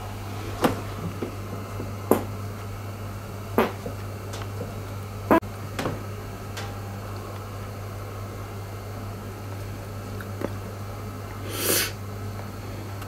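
A cat shifting inside a cardboard box: a handful of sharp taps and knocks on the cardboard, mostly in the first half, over a steady low hum. Near the end there is one short hissing puff.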